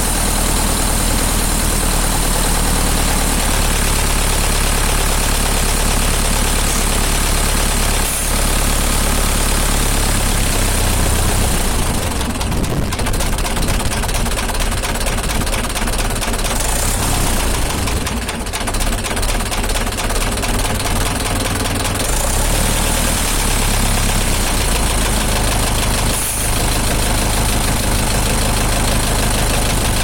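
Zetor tractor's diesel engine idling steadily with an even diesel clatter, heard close to the engine block.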